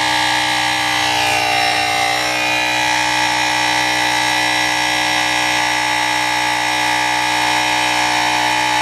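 Suaoki portable electric tyre inflator running steadily, its small compressor motor buzzing as it pumps up a motorcycle's front tyre from low pressure toward 30 psi.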